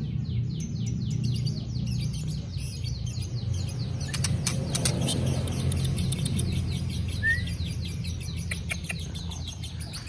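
White-rumped shama (murai batu) calling in its cage: a fast, even run of short sweeping chirps, several a second, over a steady low hum. A few sharp clicks come about halfway through.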